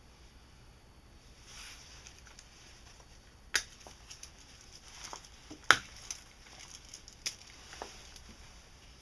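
Handling noise from a parang and its leather sheath: a few sharp clicks and taps, the loudest about halfway through, with faint rustling between them.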